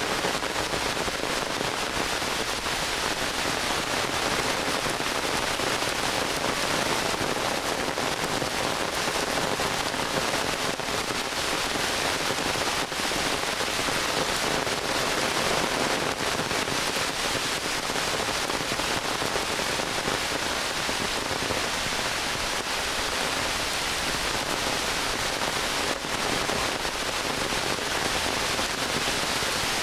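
Heavy rain pouring steadily: an even hiss of falling rain with the fine crackle of close drops.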